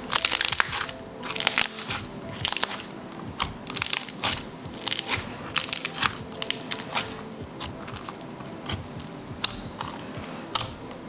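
Clear, thick slime being squeezed and stretched by hand, its trapped air bubbles popping in irregular clusters of crackling clicks, over soft background music.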